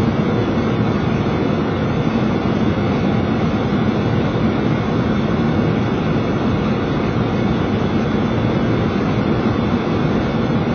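Steady rushing cabin noise of a Boeing 737 cockpit in flight on approach, the even sound of air flowing past the airframe mixed with engine and air-conditioning noise.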